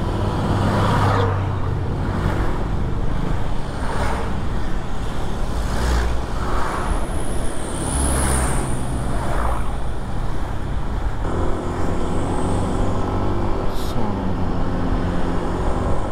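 Bus engine running under way with steady road and traffic noise; the engine note changes about eleven seconds in, and a faint high whine rises and falls for a couple of seconds just before that.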